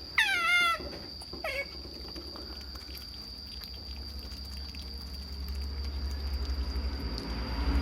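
Otter squealing excitedly: a loud, high call falling in pitch right at the start, and a shorter one about a second and a half in. After that only a low rumble, rising near the end.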